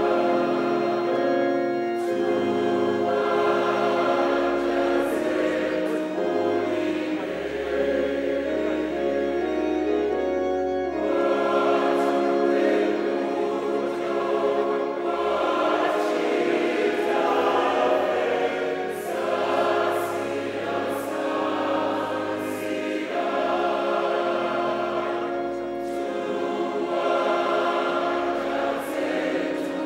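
Church choir singing a hymn in several parts, accompanied by an electronic keyboard holding low sustained bass notes under the voices.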